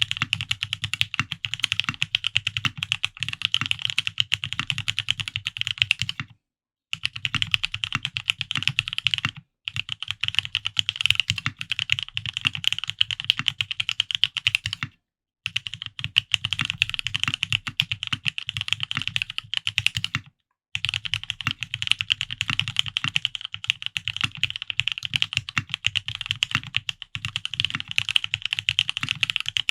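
Fast, continuous typing on a Frog mini custom mechanical keyboard: lubed Gateron Ink Black linear switches in an aluminium plate on 80A tadpole gasket mounts. Each keystroke clacks, with a deeper thock underneath. The typing breaks off briefly four times, at about 6, 9, 15 and 20 seconds in.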